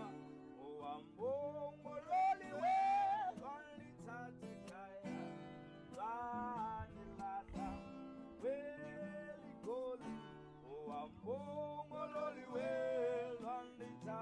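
Background music: acoustic guitar with a singing voice carrying a gliding melody.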